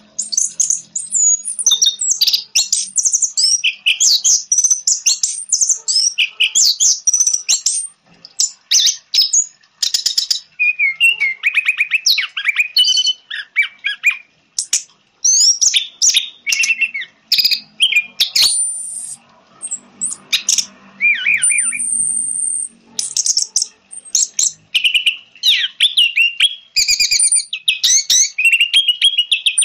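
Orange-headed thrush singing a fast, varied song of chirps, trills and whistled glides, in long phrases broken by a few short pauses.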